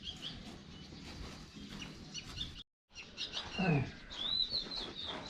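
Small birds chirping and twittering repeatedly, with a sudden break in the sound about two and a half seconds in. About a second after the break comes one short, loud call falling steeply in pitch.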